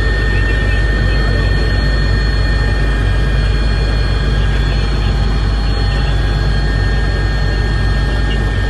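Helicopter engine and rotor noise heard inside the cabin: a steady, loud drone with a thin, constant high whine over it.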